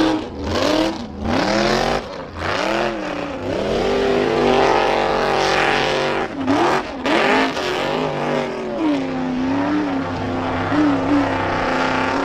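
Off-road hill-climb buggy's engine revving hard under load as its paddle tyres dig into loose gravel on a steep climb. The driver blips the throttle on and off several times, holds it high for a few seconds in the middle, then lets the revs rise and fall again.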